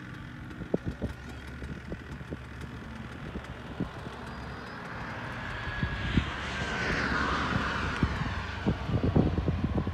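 Swift S-1 aerobatic glider passing at speed with no engine: a rush of air swells, peaks about seven seconds in with a whistle that drops in pitch as it goes by, then fades. Irregular low thumps run throughout and come thickest near the end.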